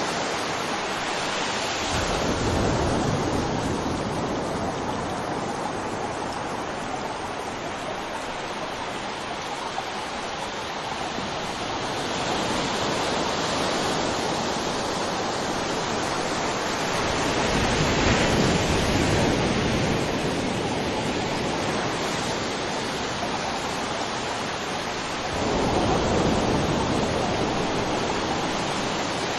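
River water rushing over rocks, a steady full rush that swells louder now and then, around two seconds in, after about seventeen seconds and again near the end.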